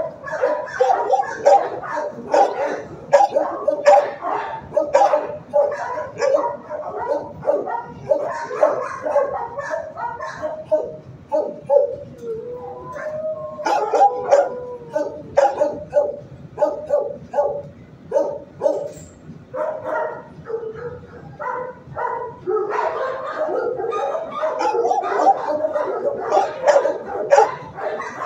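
Dogs barking in a shelter kennel block, the barks coming fast and overlapping, with a drawn-out wavering howl about halfway through.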